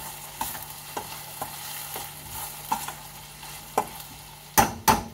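Vegetables frying in a pan with a steady sizzle, a utensil stirring them and knocking lightly against the pan every half second or so. A few louder clatters come near the end.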